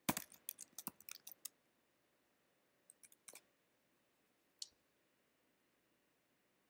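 Computer keyboard keys typed in a quick run of about eight strokes, then a few more clicks about three seconds in and a single click a second or so later.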